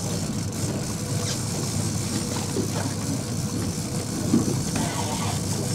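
Boat's outboard motor running steadily at low trolling speed, a constant low hum. One short knock about four seconds in.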